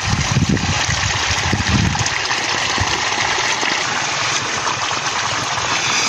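Irrigation water from a deep-well hose gushing steadily onto the soil, a constant rushing hiss. A low rumble sits under it for the first couple of seconds.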